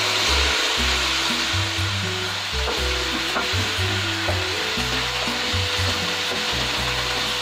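Chicken pieces and chopped green onion sizzling in hot oil in a wok, with a slotted spatula scraping and stirring them through the pan.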